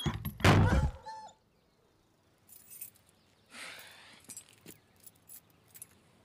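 A dog gives one loud bark lasting just under a second near the start, followed by faint rustling and small clicks.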